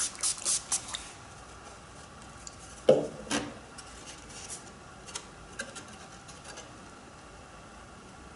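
Hands working thin cedar strips and a glue bottle on a small kayak model form: a few quick hissing puffs in the first second, a single knock about three seconds in, then scattered light clicks and taps of wood being handled.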